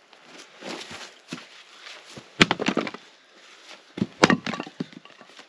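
Axe splitting firewood on a chopping block: two sharp chops about two seconds apart, each followed by a short clatter of split wood. Light rustling comes before the first chop as the wood is set up.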